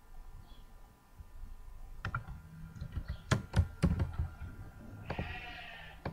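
Computer mouse and keyboard clicks, a cluster of sharp clicks in the middle and one more at the end. A brief voice-like tone lasting under a second sounds shortly before the end.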